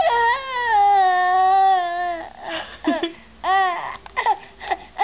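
Baby vocalizing: one long, high-pitched drawn-out call that sinks slightly over about two seconds, then a few short calls.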